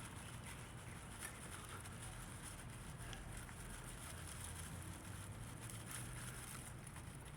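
Faint soft crackling and a few small ticks from a freshly lit tinder nest burning, over a steady low outdoor rumble and a high hiss.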